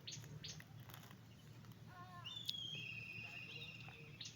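A bird calling: a short call about two seconds in, then a long, high, slightly trilled note lasting over a second. A few light clicks at the start and a steady low hum underneath.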